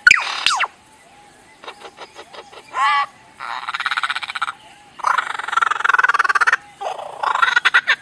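Lyrebird singing a medley of mimicked sounds. A quick falling whistle opens it, then a run of sharp clicks and a short warble, then three long phrases of rapid rattling trills with short pauses between them.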